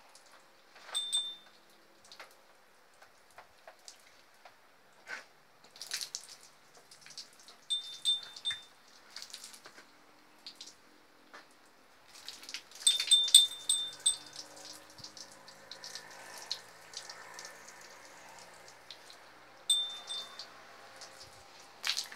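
Water being thrown over a cow's back as it is bathed: scattered splashes and drips, busiest about two-thirds of the way through, with short high ringing clinks now and then.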